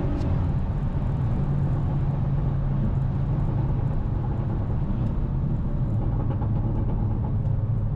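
Stage 2-tuned Mercedes-Benz GLA 250 with a downpipe, its turbocharged four-cylinder and exhaust giving a steady low drone at road speed, with tyre and road noise.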